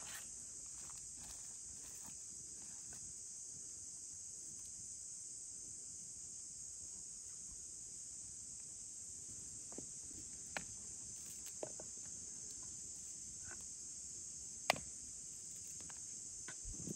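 Insects chirring steadily in a high-pitched, unbroken drone, with a few light clicks and taps from handling herbs on a wooden cutting board in the later part.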